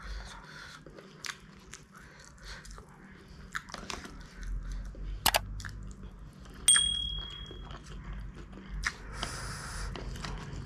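Close-up eating sounds: chewing and slurping spicy noodles, with small clicks of chopsticks on a steel plate. About seven seconds in, a single ringing metal clink.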